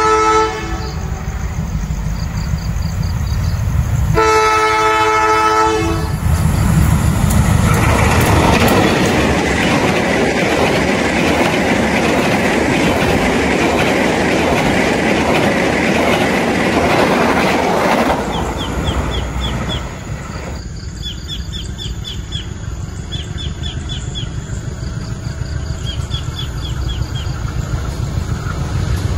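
Diesel locomotive horn of a passenger train sounding briefly at the start and again in a longer blast of about two seconds, four seconds in. The train then passes close by: loud wheel and rail rumble with clickety-clack for about twelve seconds, easing to a lower rumble after that.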